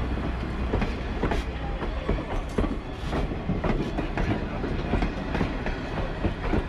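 Train running on its track: a steady low rumble with irregular clicks and knocks from the wheels and cars.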